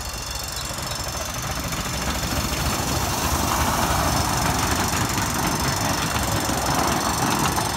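Little Puffer miniature steam train running, a mechanical rumble and clatter that grows louder over the first few seconds and then holds steady.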